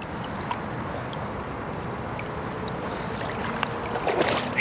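River water running steadily at the edge of a pool, with a few small splashes and knocks near the end.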